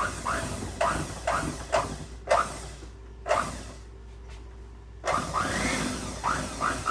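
Electric hand mixer beating powdered sugar into cream cheese frosting, its sound swelling and dipping about twice a second as the beaters work through the thick mix. It stops for about a second and a half past the middle, then starts again.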